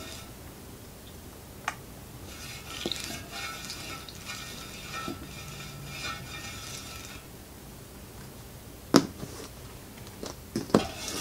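Hand rubbing tire bead lubricant onto a spoked motorcycle wheel rim, a soft rubbing that runs for about five seconds and then stops, followed by a single sharp tap about nine seconds in.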